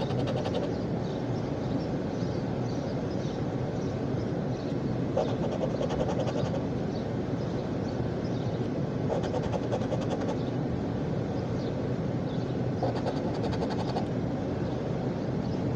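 A coin scraping the silver coating off a scratch-off lottery ticket, in several short bouts of rapid scratching strokes, over a steady low rumble.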